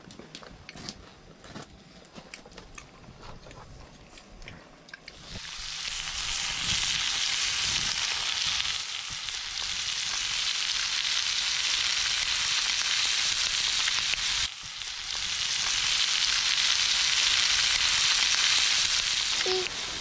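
Meat sizzling loudly in a pan over a wood fire, with flames flaring around the pan. It starts about five seconds in after a few faint clicks, and the hiss breaks off briefly about two-thirds of the way through.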